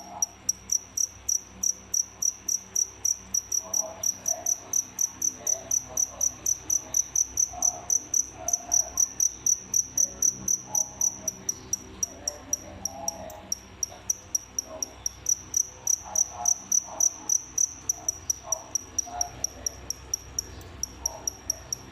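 A feeder cricket chirping: a steady run of short, high-pitched chirps, about four a second, with a brief pause near the end. It is a male's song to a female, which the keeper takes for the courtship of a newly formed pair.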